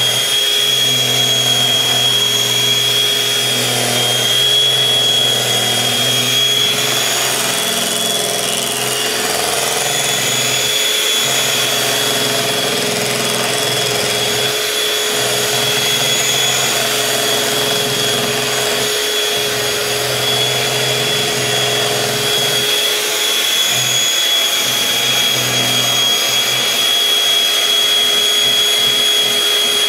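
Electric hand mixer running steadily, its beaters whirring through a sugar, oil and egg mixture being creamed for cake batter. A constant high whine sits over a low motor hum that dips briefly a few times as the beaters move through the bowl.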